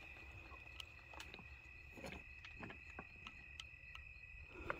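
Faint night insects, crickets, trilling on a steady high note, with a few scattered faint clicks and a soft rustle near the end.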